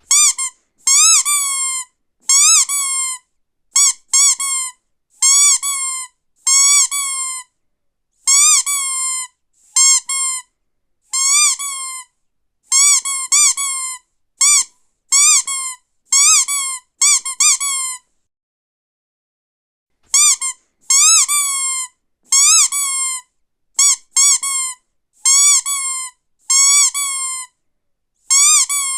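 Squeaky dog toy being squeezed over and over, each squeeze giving a short high squeak that bends up and down in pitch, often two or three in quick succession. The squeezing stops for about two seconds a little past the middle, then carries on.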